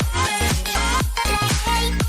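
Upbeat dance music with a strong bass beat and a steady pulse.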